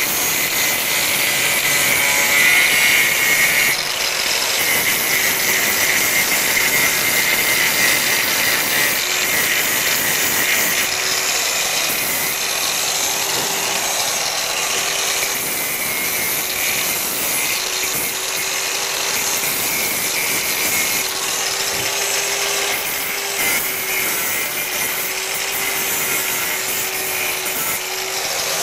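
Handheld electric angle grinder running continuously and grinding down the flux-core weld beads and slag on a welded steel sculpture: a steady motor whine under a harsh grinding rasp that rises and falls as the disc bites the metal.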